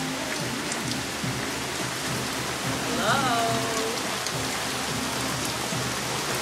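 Steady rain falling on the hot tub's water and the surfaces around it, a dense, even patter.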